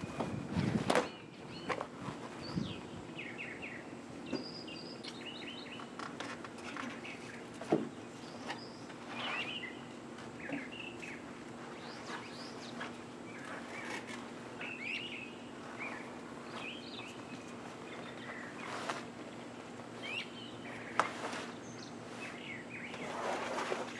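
Birds chirping and singing on and off, with a few sharp clicks and knocks from the metal and plastic frame of a Jeep soft top being handled, over a faint steady hum.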